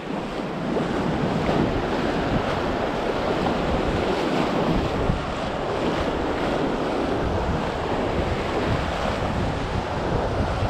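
Ocean surf washing in over the shallows as a steady rush of noise, with wind buffeting the microphone.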